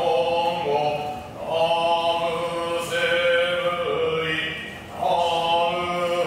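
Buddhist monk chanting shōmyō: long, held vocal notes that move slowly in pitch, phrase by phrase, with a short pause for breath about a second in and again near five seconds.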